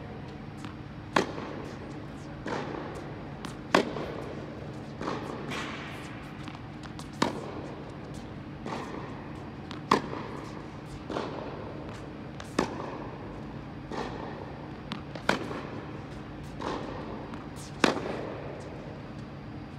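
Tennis ball struck by racket in a baseline rally: a sharp pop about every two and a half seconds from the near player's groundstrokes, with fainter hits and bounces in between. The hits echo in an indoor tennis hall over a steady low hum.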